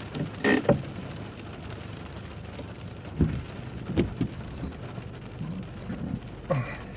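Steady rain falling, with a few short knocks and brief voice-like sounds about half a second in and near the end.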